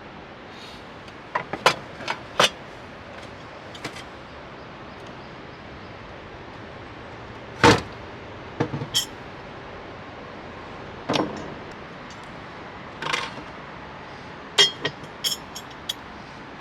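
Fire in a small wood-burning stove: irregular sharp pops and knocks, a few close together, over a steady background hiss.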